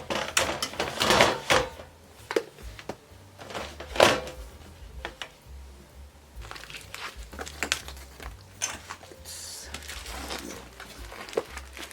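Handling noise as small bins and stationery supplies are moved and set down on a cart shelf: scattered knocks, clicks and rustles, with one sharp knock about four seconds in.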